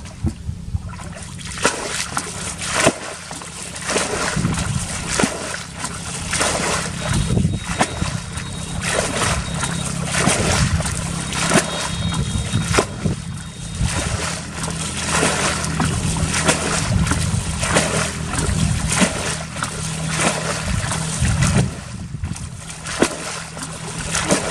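Bucket scooping muddy water from a shallow pond and pouring it out, bailing the pool: repeated irregular splashing and sloshing.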